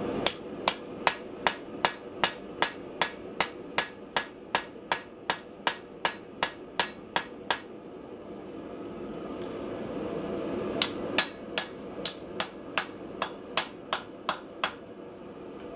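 Hand hammer striking a glowing cable Damascus blade on the anvil: drawing out the blade. An even run of blows comes about two and a half a second for some seven seconds, then a pause of about three seconds, then a second run of about ten blows.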